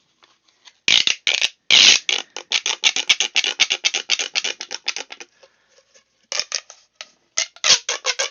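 Corrugated plastic pop tubes being stretched and squashed, their ribs snapping in rapid runs of clicks, about nine a second. The clicking pauses a little after five seconds in, then starts again.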